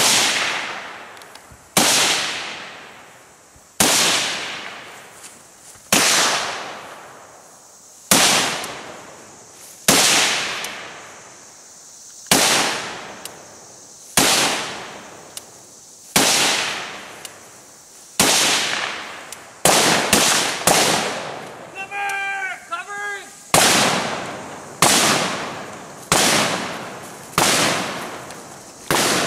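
Gunshots fired one at a time, roughly every two seconds, with a quicker string of three shots about two-thirds of the way through. Each shot is followed by a long echoing decay. A brief voice is heard between shots near the end.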